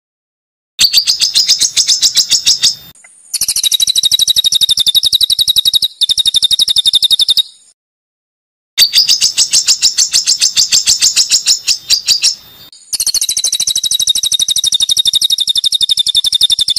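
A songbird's harsh, rapid trill: fast runs of sharp, evenly repeated notes in four phrases of two to four seconds, each cut off by a moment of dead silence, with the same pair of phrases heard twice. It is an edited, looped masteran recording of 'tembakan kasar' (rough, rapid-fire song) used to train competition birds.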